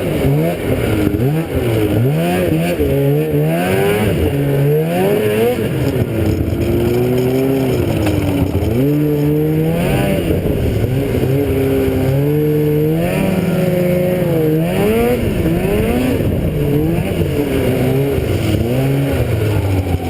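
Engine of the vehicle carrying the camera, running under way and revving up and down repeatedly as it rides over uneven ground.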